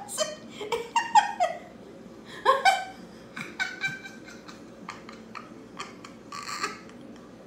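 A woman laughing hard in bursts of high-pitched giggling, loudest in the first three seconds, then trailing off into fainter, breathy laughs and gasps.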